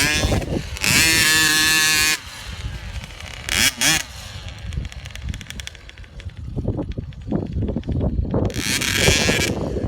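Dirt bike engine revving in bursts, a long loud rev about a second in, a short one near four seconds and another near the end, with the engine running lower in between.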